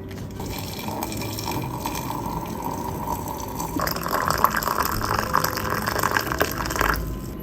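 Water running steadily, like a tap pouring, which gets louder and fuller about halfway through and stops shortly before the end.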